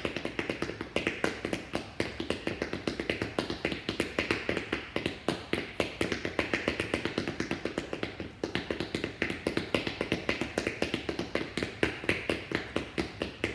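Seated jogging in place: hard-soled shoes tapping on a hard tile floor in quick, even steps, about four or five taps a second.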